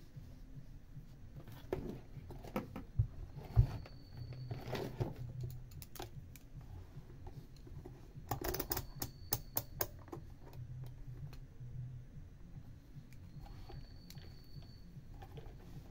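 Small clicks and taps of hands handling a MOSFET and a digital multimeter, including two sharper knocks about three seconds in. A quick run of clicks comes about eight to ten seconds in, as the multimeter's rotary selector dial is turned.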